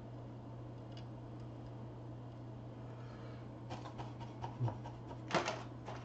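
A run of small, sharp clicks and taps starting a little past halfway, two of them louder than the rest, over a steady low hum: small tools being handled at a soldering bench.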